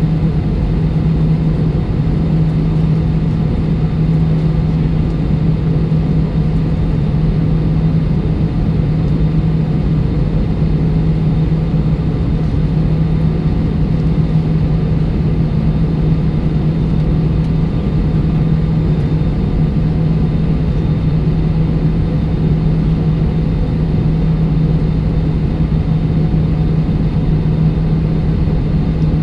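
Steady cabin drone of an Airbus A320 taxiing with its jet engines at low thrust: a constant low hum over a rumble that neither rises nor falls.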